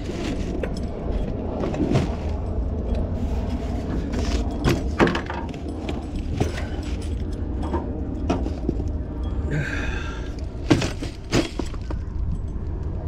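Plumbing parts and plastic parts bins being handled: scattered clicks, knocks and metallic clinks, with a brief rustle about ten seconds in, over a steady low rumble.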